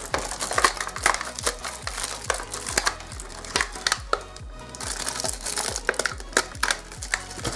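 Paper and plastic packaging crinkling and crackling as it is handled and cut open with a craft knife, over background music with a steady low beat.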